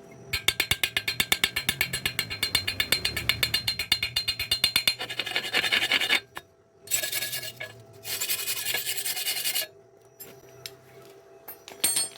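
A hand tool rasping on steel in quick, even strokes, about five a second, for roughly six seconds, then two shorter spells after a brief pause.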